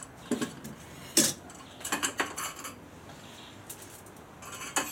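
Clinks and knocks of a metal camp cooking pot and its trivet, made from a baking tray, being handled and set down: a handful of separate sharp clatters, the loudest a bit over a second in.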